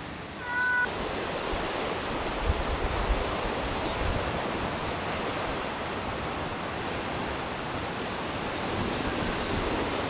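A cat meows once at the very start, then ocean surf breaking on a rocky shore: a steady, unbroken rush of waves.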